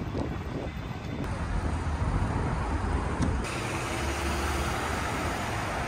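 City street traffic noise: cars passing in a steady wash of road noise. The sound shifts abruptly about one second in and again about three and a half seconds in.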